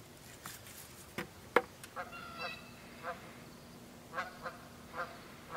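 Geese honking overhead in short calls that start about two seconds in and repeat every half second to a second. Before them come two sharp knocks, the louder one about a second and a half in.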